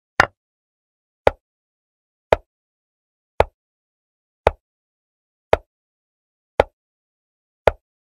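Chess-move sound effect from an animated online chessboard: a short, sharp click about once a second, eight in all, with silence between, one click for each move played.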